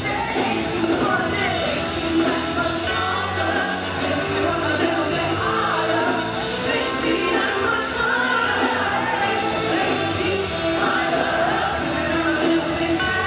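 Live pop-rock song: a woman singing lead over a rock band and a symphony orchestra, at a steady, loud level.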